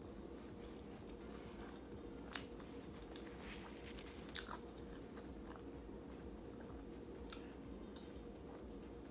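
Close-miked mouth sounds of a person chewing food, with a few scattered sharp clicks and smacks over a faint steady hum.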